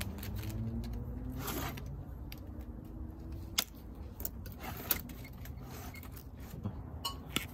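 Metallic rattling and scraping of a roll of wire mesh fence guard being handled, with a few sharp snips as pincers cut the wrapping off it.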